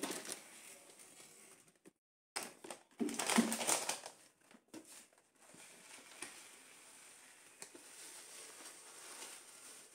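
A cloth briefly wiping a cupboard shelf, then a bag of oat flakes crinkling as it is opened, followed by the oats pouring in a steady hiss into a plastic storage container.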